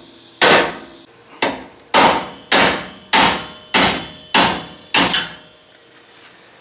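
Hammer blows on a steel punch driving a cut ball-joint rivet out of a steel lower control arm. Eight sharp metallic strikes, each ringing briefly, come a little under two per second and stop about five seconds in.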